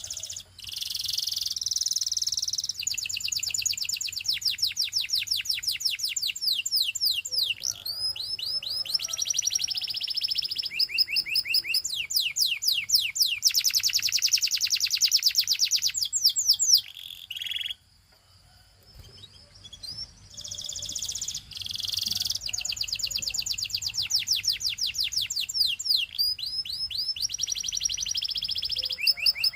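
Canary singing a long song of fast trills: runs of rapid repeated high notes and quick sweeping phrases, with a short break a little past halfway before it starts up again.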